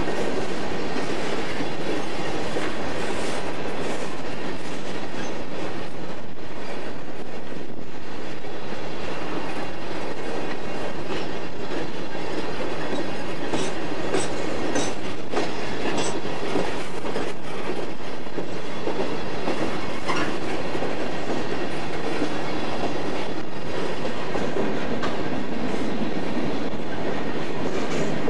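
Coal hopper cars of a BNSF coal train rolling past close by: a steady rumble of steel wheels on rail, with scattered clicks and clacks as the wheels pass over the track.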